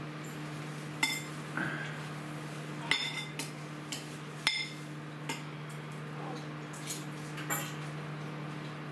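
Dishes and utensils clinking on a kitchen counter as they are handled and put down: several sharp clinks, some ringing briefly, over a steady low hum.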